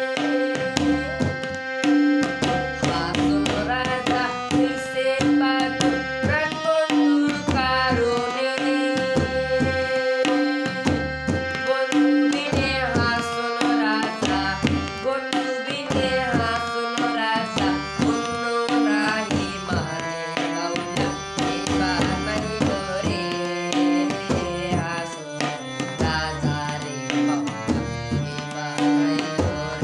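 Electronic keyboard playing a Bengali folk melody over a steady tabla-like rhythm, with a young man singing along.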